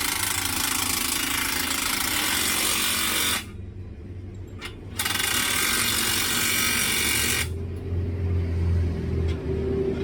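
Impact wrench running in two long bursts, driving in an exhaust clamp bolt, with a short pause between them; a low hum comes up near the end.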